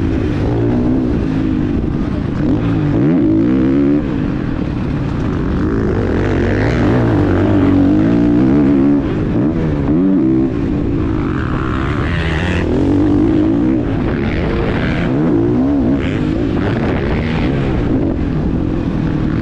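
Husqvarna FC 450 motocross bike's single-cylinder four-stroke engine running hard, its pitch rising and falling over and over as the rider opens and closes the throttle and shifts through the gears.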